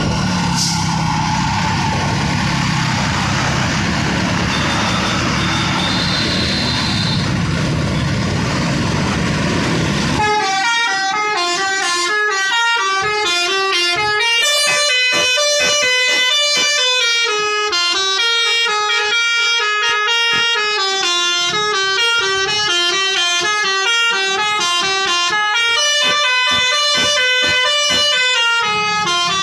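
Traffic and engine noise for about ten seconds, then a bus's multi-tone "telolet" horn plays a fast melody of stepped notes.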